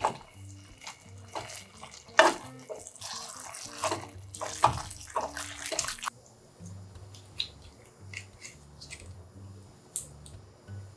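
Instant noodles in thick sauce being tossed with metal tongs in a hot frying pan: wet sizzling and slapping with sharp clacks of the tongs against the pan, lasting about six seconds. Then it drops off abruptly to a few faint small clicks.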